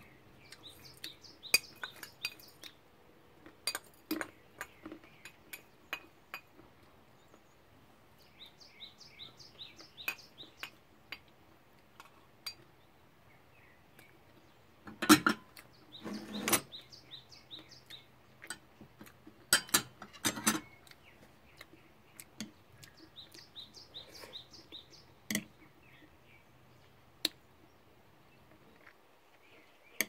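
Metal spoon and chopsticks clinking and knocking against ceramic bowls and a glass cup while eating, the sharpest knocks about halfway through. A bird chirps in short repeated runs in the background, three times.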